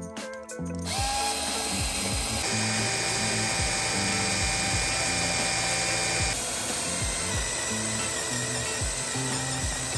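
Handheld power drill running a freshly sharpened twist bit through a copper strip: a steady motor whine with cutting noise that starts about a second in and changes pitch about six seconds in. Background music with a steady beat plays underneath.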